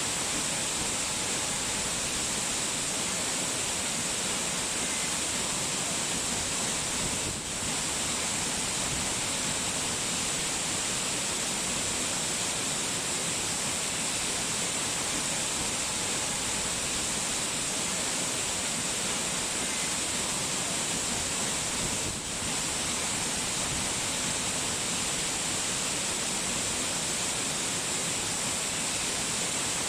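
Steady rushing water noise, strongest in the hiss range, with two brief dips in level.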